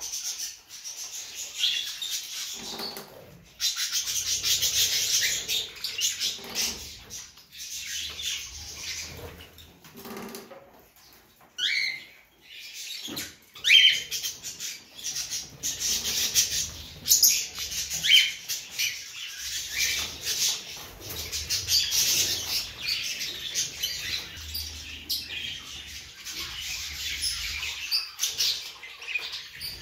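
Many caged small birds, budgerigars among them, chattering and chirping without a break, with a few short rising whistled calls standing out about twelve and fourteen seconds in.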